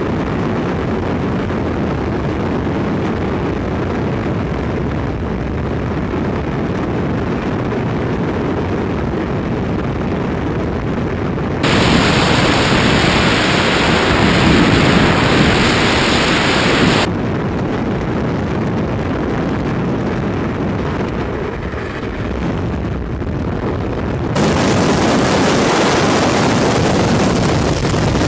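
Freefall wind rushing over a camera microphone: loud, steady noise. It abruptly gets louder and hissier about twelve seconds in, drops back about five seconds later, and jumps up again near the end.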